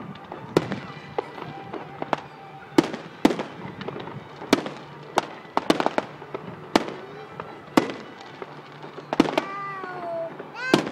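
Fireworks display: aerial shells bursting in an irregular string of sharp bangs, roughly one or two a second, some louder than others, with a few pitched tones gliding down in pitch near the end.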